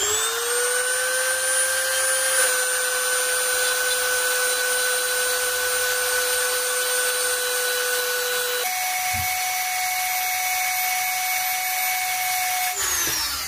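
Dremel rotary tool with a cutting bit grinding down the rubber end cap of a wading staff, shaving the rounded rubber flat. It spins up to a steady high whine, steps up to a higher whine about two-thirds through, and winds down near the end.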